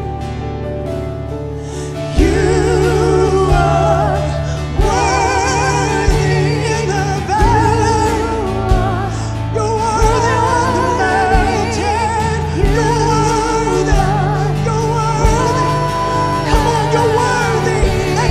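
Live worship music: a woman sings a wavering, vibrato-laden melody into a microphone over electric guitar and a steady beat. The band gets louder about two seconds in.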